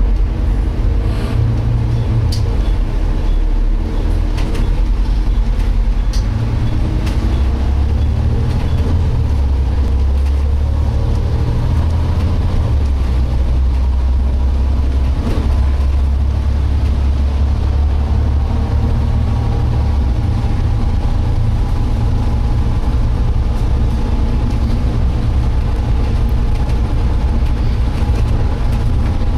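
Volvo B7TL double-decker bus under way, heard from inside: a heavy low engine and road rumble, with a whine from the rear-axle differential that rises and falls in pitch with road speed. The differential noise is unusual, which suggests a fault in the diff.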